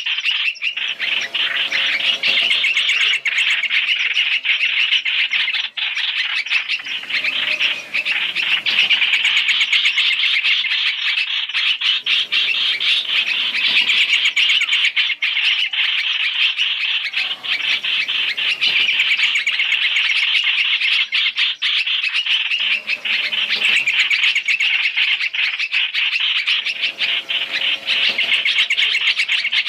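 Hoành hoạch (trao trảo) birds calling in a dense, continuous chatter of chirps, a trapping lure recording of their calls.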